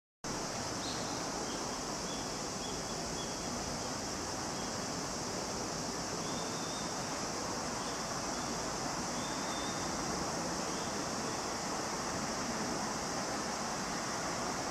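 Steady rushing background noise with a bright high hiss over it, starting suddenly and then unchanging, with a few faint short chirps.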